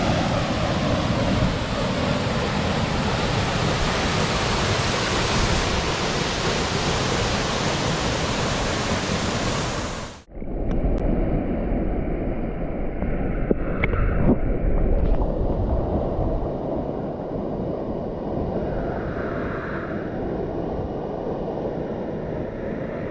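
Waterfall: a steady loud rush of falling and splashing water. About ten seconds in it cuts sharply to a duller, less hissy rush of the same water.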